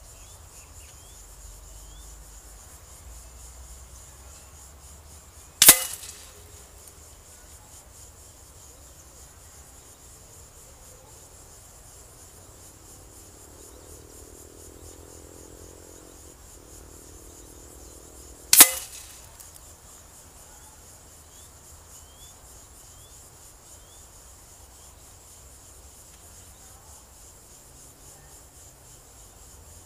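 Two sharp cracks about 13 seconds apart as PCP air-rifle pellets strike a paper target on a cardboard backing, over a steady chirr of insects.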